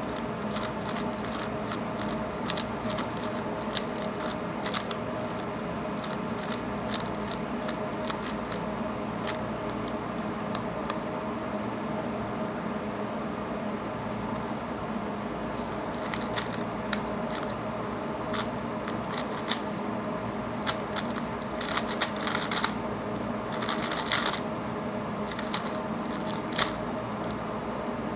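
A 3x3 speedcube being turned fast, its layers clicking in quick runs, with a lull of a few seconds in the middle, over a steady background hum.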